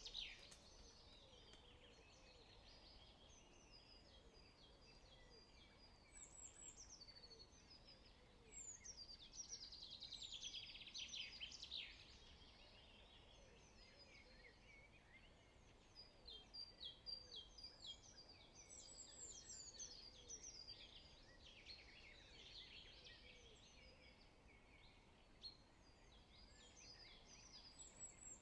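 Faint background birdsong: songbirds singing in several bursts of rapid high chirps and trills, with quieter pauses between.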